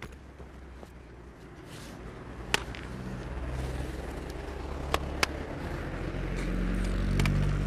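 Road traffic: a motor vehicle approaching, its low rumble growing steadily louder to a low engine hum near the end, with a few sharp clicks scattered through.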